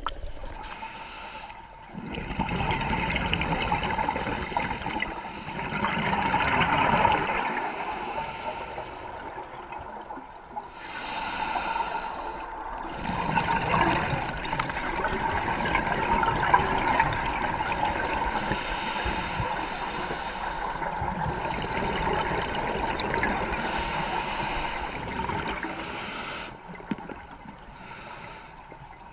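Scuba divers' exhaled bubbles from their regulators, heard underwater: a gurgling rush that swells and fades in stretches of a few seconds, with quieter gaps between breaths.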